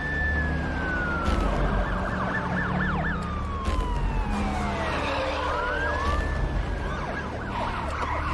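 Police car sirens wailing in slow rising and falling sweeps, broken twice by bursts of fast yelping, over a low steady rumble.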